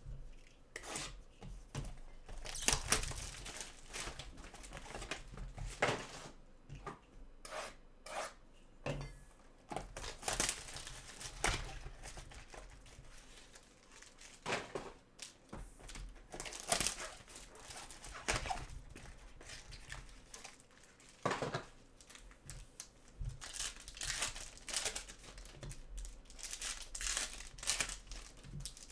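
Plastic wrapping and card packaging being torn open and crinkled by hand, in irregular crackling bursts throughout, as a sealed trading-card box is opened.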